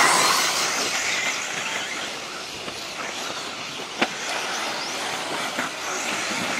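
1/10-scale electric four-wheel-drive RC buggies racing on dirt: motor whine and tyre noise on the loose surface, loudest at the start. A sharp knock about four seconds in.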